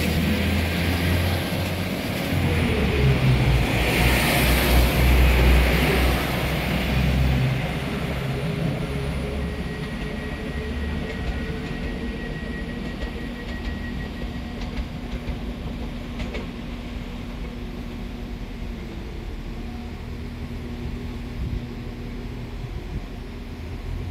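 Northern Class 195 diesel multiple unit pulling away from the platform: its underfloor diesel engines work hard, with a rising whine, for about the first seven seconds. The train's sound then fades slowly as it moves off.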